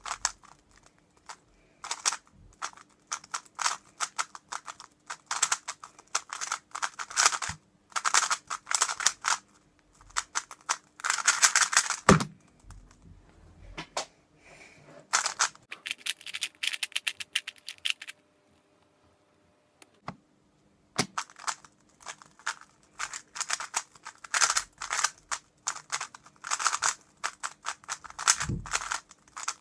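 A 3x3 speedcube being turned fast: rapid plastic clicking and clattering of the layers in dense runs. A single thump comes about twelve seconds in, then the turning stops for a few seconds, and fast turning starts again near twenty-one seconds.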